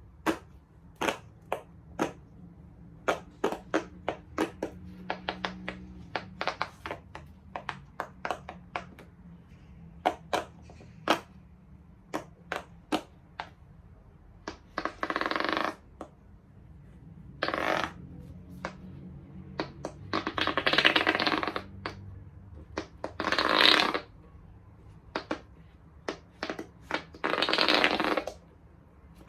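Silicone pop-it fidget toy bubbles being pressed one after another, each giving a short sharp pop at an uneven pace. In the second half several longer, rasping noisy bursts of about a second each break in between the pops.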